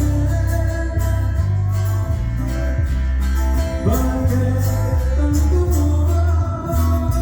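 A band playing loud music with heavy bass notes that change in steps, sustained melody notes and a regular percussion beat, typical of a live sound check.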